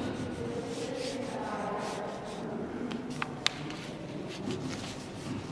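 Pencil sketching on watercolour paper: soft scratching strokes, with two sharp clicks a little past halfway.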